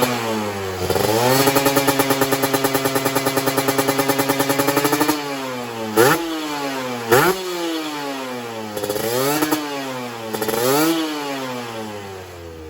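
Kawasaki Ninja RR two-stroke engine breathing through an Aitech Cobra expansion chamber exhaust, being revved. It is held at a raised, steady rev for about four seconds, then blipped sharply twice, then given several shorter revs that rise and fall before it drops back toward idle.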